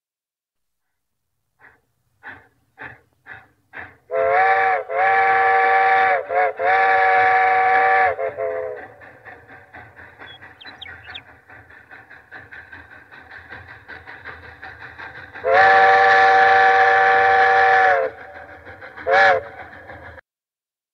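Steam locomotive whistle sounding a chord of several tones: a series of loud blasts with short breaks, then, after a stretch of quieter rapid chuffing and running noise, one long blast and a short final toot. It opens with a few slow, evenly spaced exhaust chuffs.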